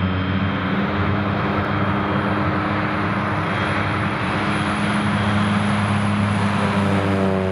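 Cessna 208 Caravan's PT6A turboprop engine running at taxi power: a steady propeller drone with a thin high turbine whine above it as the plane taxis past.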